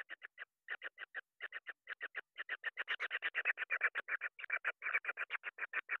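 A kingfisher calling in rapid, repeated short harsh notes, first in groups of three or four with brief gaps, then in an unbroken run from about two and a half seconds in.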